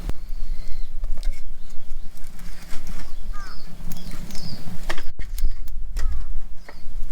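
Small birds chirping in short calls a few times over a steady low rumble, with scattered sharp clicks.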